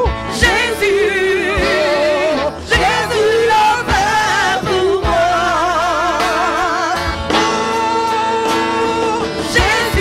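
A woman singing a French-language gospel song into a microphone over instrumental backing, with wide vibrato on long held notes.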